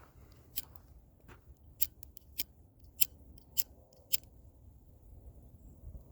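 Footsteps crunching, a crisp crack about every half second, fading out after about four seconds.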